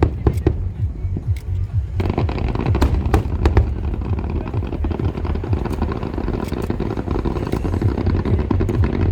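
Fireworks display: a rapid, continuous stream of deep booms with sharp cracks among them. The sound thickens into a fuller, steadier rush about two seconds in.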